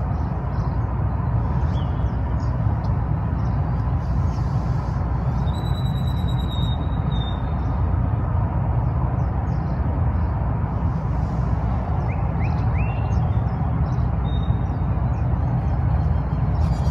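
Outdoor morning ambience: a steady low rumble, with faint birds chirping over it: a few short rising chirps near the start and again past halfway, and a thin high note held for about two seconds near the middle.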